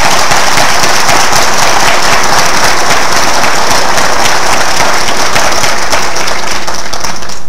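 A large audience applauding: dense, steady clapping from many hands that stops at the end.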